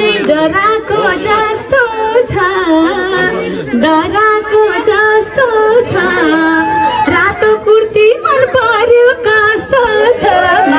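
Live Nepali lok dohori singing: a female voice sings a wavering, ornamented folk melody over musical accompaniment.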